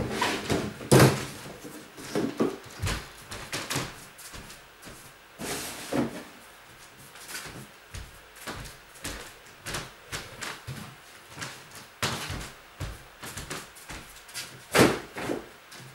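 Knocks, clatters and rustling of boxes and belongings being handled and set down, with sharp bangs about a second in and again near the end.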